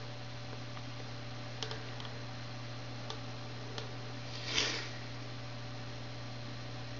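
Steady low electrical hum of a booting Dell Dimension E521 desktop computer. A few faint clicks come through, and a short soft rustle about four and a half seconds in.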